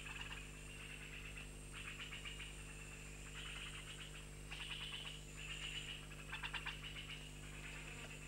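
Rainforest animal chorus: a rapid pulsing trill, like a frog or insect call, repeated in short bursts about once a second over a steady low hum.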